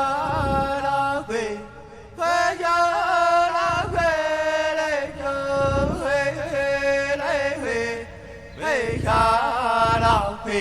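A single voice sings a chant-like song in vocables ("hey de, a hui de yo"), holding long notes that waver and slide between pitches, with short breaths between phrases.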